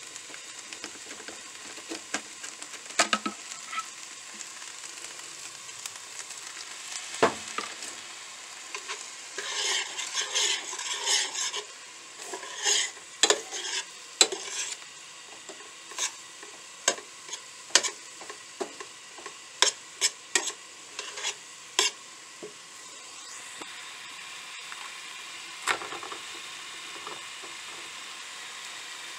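A metal spoon stirs and scrapes chicken taco filling in a stainless skillet, clinking against the pan over a steady sizzle of frying. The scraping is busiest about a third of the way in, then thins to scattered clinks, and near the end only the sizzle remains.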